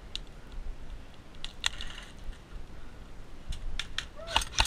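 Airsoft guns firing: sharp snapping clicks, a few scattered shots and then a quick run of louder shots near the end.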